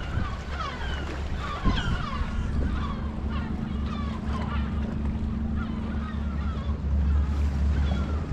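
A flock of gulls calling, many short falling cries overlapping, thinning out in the second half, over a steady low rumble.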